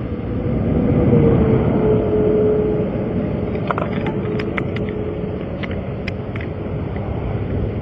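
Interstate traffic going by in a steady rush, one vehicle swelling past about a second in with a slowly falling hum. Several light clicks come through the middle.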